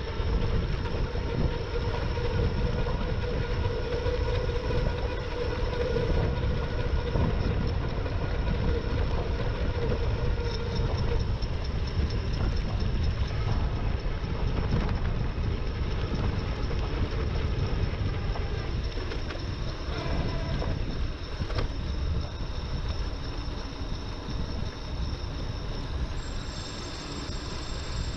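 Wind buffeting the microphone and road noise while riding an e-bike, with a steady whine for roughly the first ten seconds that then fades.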